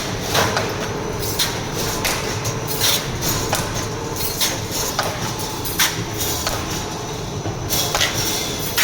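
Wire mesh welding machine running: a steady mechanical hum broken by repeated sharp clanks, roughly one every half second to a second, as the machine cycles through its welding strokes.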